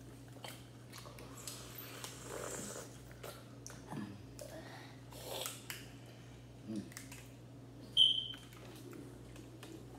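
People eating at a table: faint chewing, swallowing and breathing sounds with small clicks over a steady low hum, and one short, sharp high-pitched squeak about eight seconds in.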